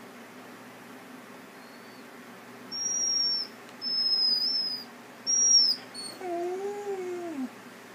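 A dog vocalising, the 'singing' of a pet: three thin, high whines of under a second each, then a lower, longer howl that rises and falls near the end.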